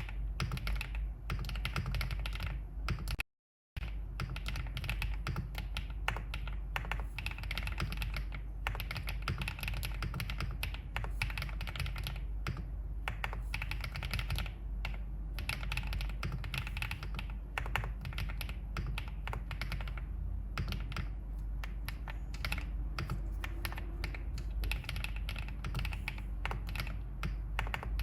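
Continuous typing on a Wave75 mechanical keyboard in an aluminium case with green bamboo (青竹) switches: a dense, steady stream of keystroke clicks over a low, steady hum. The sound cuts out completely for about half a second a little after three seconds in.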